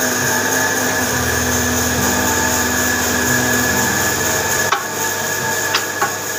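Woodworking power machine running steadily with a constant high whine and a low hum, with a few light wooden knocks about three-quarters of the way in.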